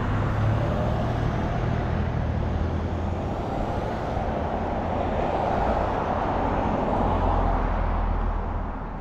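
Road traffic on a multi-lane street: a pickup truck and cars passing close by, a steady rush of tyre and engine noise that swells in the second half and eases off near the end.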